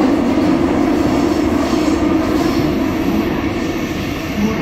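Busan Transportation Corporation 2000-series subway train running at speed through a tunnel, heard from inside the car: a steady loud rumble of wheels on rail that eases slightly near the end.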